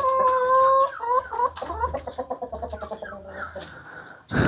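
Shamo chickens clucking and calling: a drawn-out call of about a second, then shorter bending calls and a quick run of clucks, with one more brief call near the end.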